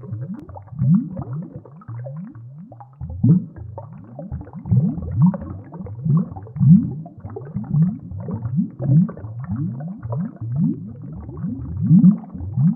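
A run of short, low, upward-gliding gurgling calls, about two a second, like an aquatic creature sound effect.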